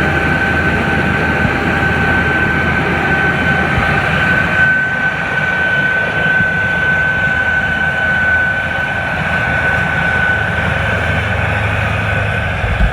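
New Holland TR99 combine harvester running steadily while harvesting soybeans, a steady high whine over a low rumble.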